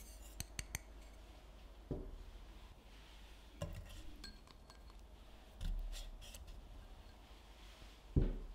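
Salt trickling into an empty copper saucepan, a few grains ticking on the metal, followed by pieces of butter dropped into the pan with dull thuds, and a louder knock near the end.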